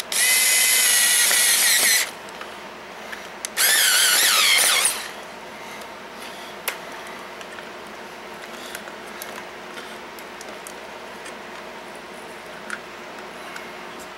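Electric drill running in two bursts, the first about two seconds long and the second about a second and a half, its pitch wavering in the second; a few light clicks of handling follow.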